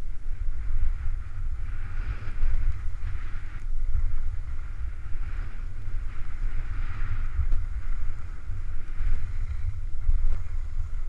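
Wind buffeting the microphone of a skier's body-mounted camera during a downhill run, a steady low rumble. Over it, the hiss of skis scraping on packed snow swells and fades every second or two as the skier turns.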